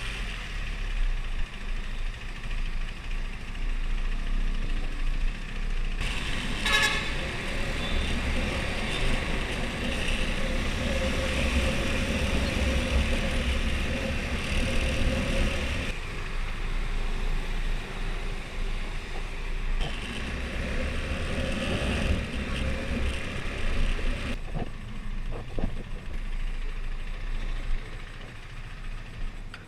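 Husqvarna Svartpilen 401's single-cylinder engine running on the move through its stock exhaust, with road and wind noise. A vehicle horn toots briefly about seven seconds in. The engine sound drops noticeably quieter in the last few seconds.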